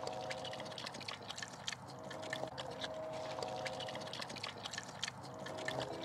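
Mangalitsa–Berkshire cross pig eating wet table scraps, a quiet run of quick wet smacking and slurping clicks.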